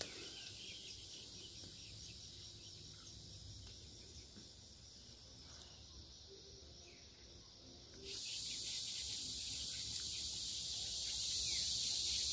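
Faint outdoor background, then about eight seconds in a loud, steady, high-pitched insect chorus starts suddenly and keeps going.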